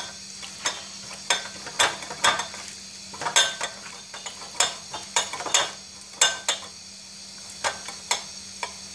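A hand mixing raw poa fish pieces with spice paste, salt and oil in a bowl, giving wet squelches and slaps at irregular intervals, roughly one or two a second.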